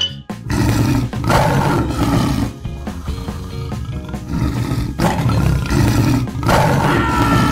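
A tiger's roar, added as a sound effect, comes several times over background music.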